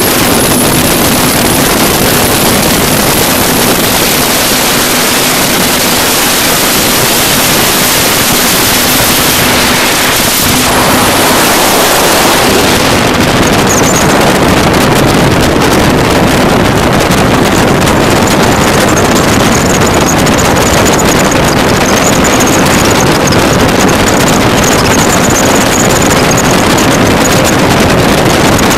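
1986 Advantage 18' Classic speedboat running at speed: a loud, steady rush of wind and water spray from the hull, with the engine's drone underneath.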